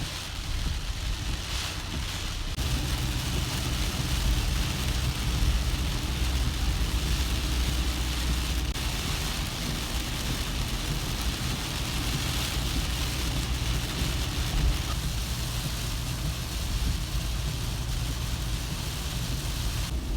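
Rain falling on a moving car, with a steady low engine and road hum underneath that grows stronger about two seconds in.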